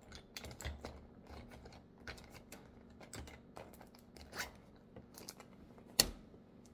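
Small, irregular clicks and taps of lipstick tubes and cosmetic containers being handled with long acrylic nails and packed into a zippered makeup pouch, with one sharper knock about six seconds in.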